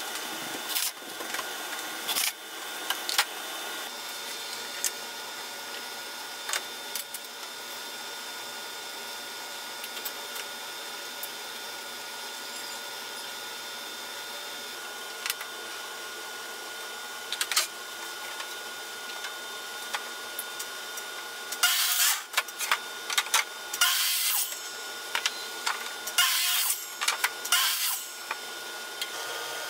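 Woodworking in a home shop: a steady faint hum with scattered clicks and knocks, then several short, loud scraping strokes on wood in quick succession near the end.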